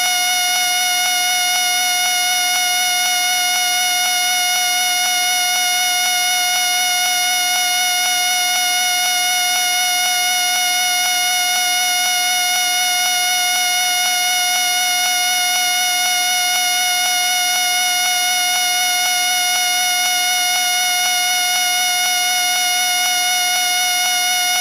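A whistle sounding one loud, steady, unbroken tone that holds the same pitch throughout.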